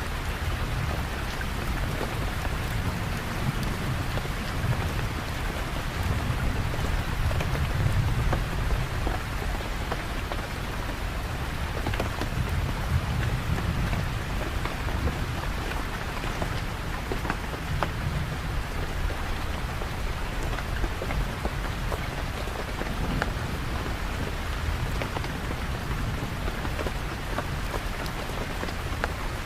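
Steady rain falling, an even hiss of drops, with a low rumble that swells and fades several times underneath.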